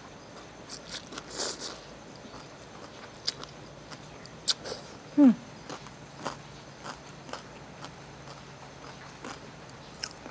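Close-up mouth sounds of chewing a mouthful of rice noodles in papaya salad with pork crackling: wet chewing broken by scattered sharp crunches and clicks. A short falling hum of relish comes about five seconds in, and it is the loudest sound.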